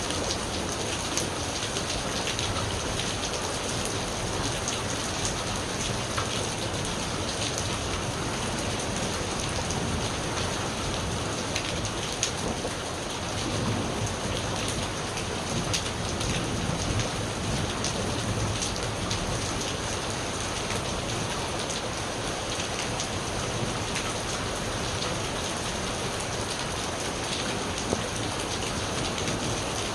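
Steady rain falling on surfaces, an even hiss dotted with the sharp ticks of individual drops.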